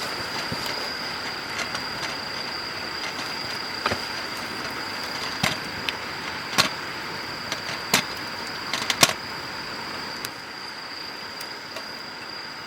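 Wood campfire crackling, with a handful of sharp pops scattered through the middle, the loudest about nine seconds in, over a steady hiss and a constant high thin tone.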